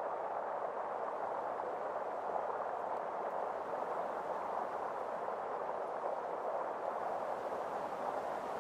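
Steady, even rushing of water, unchanging throughout.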